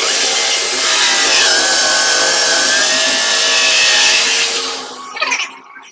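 Electric drill boring into a wooden door. The motor's pitch drops slightly about a second and a half in as the bit bites, and it winds down about four and a half seconds in.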